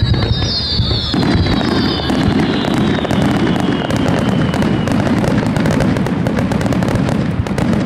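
Starmine fireworks barrage: shells launched and bursting in quick succession, with dense crackling over a continuous low rumble. Several whistling shells fall in pitch and fade out about halfway through.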